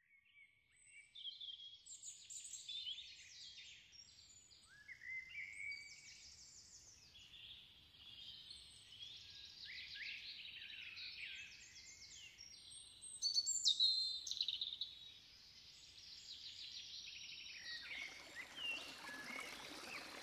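Woodland birdsong: several birds chirping and trilling, a busy patch about two-thirds of the way through. Near the end the steady trickle of a shallow stream running over leaves comes in under the birds.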